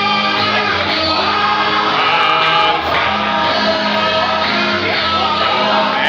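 Music with voices singing over held bass notes.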